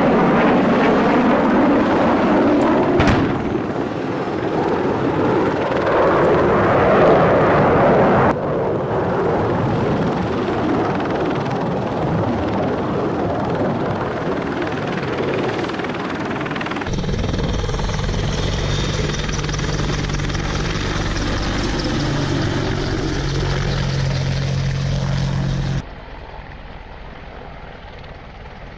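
Helicopter rotor and engine noise in several edited segments, with abrupt changes about 8 and 17 seconds in. The later segment carries steady low engine tones, and the level drops sharply near the end.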